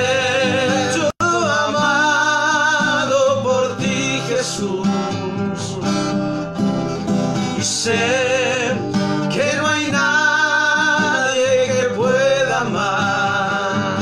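Acoustic guitar accompanying two men singing a slow Spanish worship song with vibrato on the held notes. The sound cuts out for a split second about a second in.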